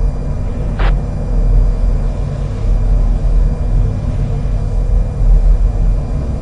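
Steady low background rumble, like a running vehicle or distant traffic, with one short sharp click about a second in.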